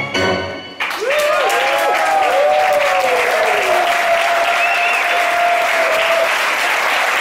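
A tango piece for piano and violin ends on its last notes, and less than a second in the audience breaks into loud, sustained applause with shouts of approval.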